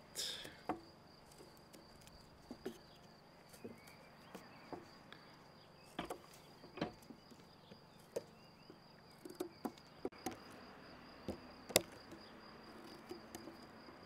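Pocketknife blade cutting into a thin wooden stick, carving a notch with alternating stop cuts and fine cuts: scattered short clicks and brief scrapes. A steady faint high tone runs underneath.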